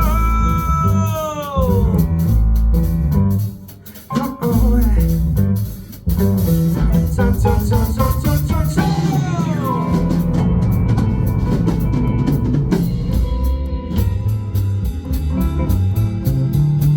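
Live funk band playing an instrumental passage: guitar with falling, sliding notes over drum kit and bass. The band drops out briefly about four seconds in, then the groove picks back up.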